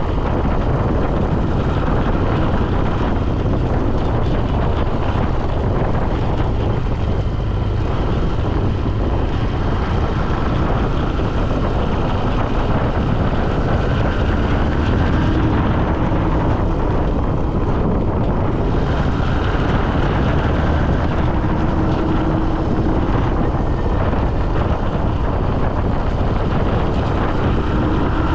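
Steady, loud wind buffeting the microphone on the move, with a faint tone underneath that slowly rises and falls.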